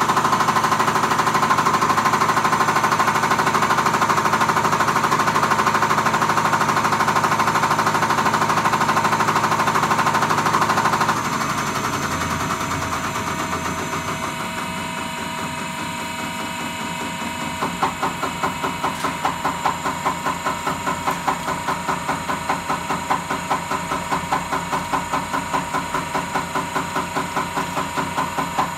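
Diesel injector test bench running with an injector firing under test: a loud, rapid mechanical ticking that drops in level about 11 seconds in. From about 17 seconds it settles into an even knocking of about two beats a second, as the bench steps down to a slower test stage.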